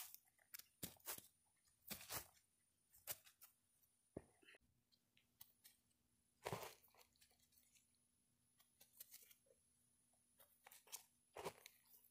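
Faint, scattered crunches and rustles of dry grass and twigs as stuffed toys are moved by hand over the ground, with the loudest ones about six and a half seconds in and near the end.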